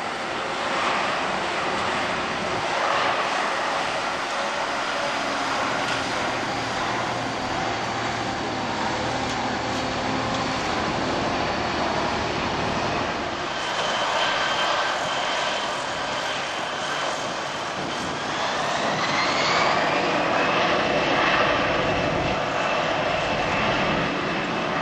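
Airbus A320-111 jet engines (CFM56 turbofans) running at low thrust while the airliner taxis, a steady rushing noise with a high whine. About three-quarters of the way through, the whine rises in pitch and holds higher as the engines spool up and the sound gets a little louder.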